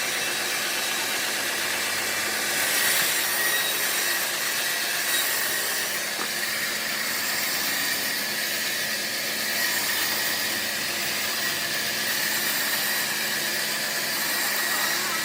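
Homemade band sawmill running steadily as its blade cuts lengthwise through a large trembesi (rain tree) log, a continuous saw noise with a steady high whine.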